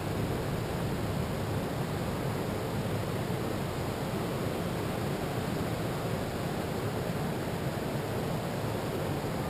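Steady, even rush of ocean surf mixed with wind on the microphone.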